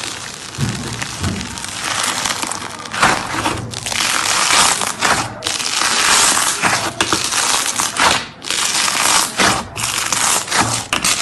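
Slime being squeezed and pressed by hand, giving a dense crackling, crunching noise with a few brief pauses.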